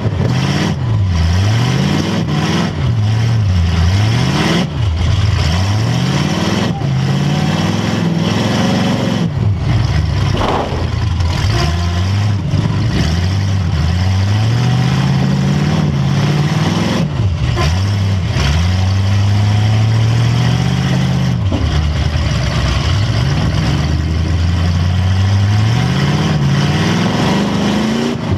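Demolition derby car's engine revving hard up and down again and again, heard from inside the car, with a few sharp knocks and bangs along the way.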